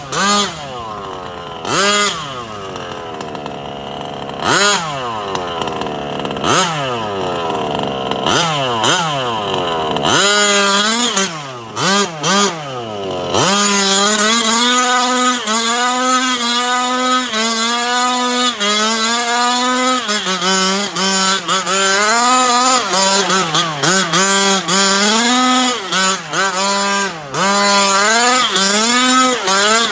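Small gas two-stroke engine of a Losi 5IVE-T 2.0 1/5-scale RC truck being driven. For the first ten seconds the throttle is blipped, a rev rising and falling every second or two. From about ten seconds in the engine runs louder and near full throttle, its pitch wavering.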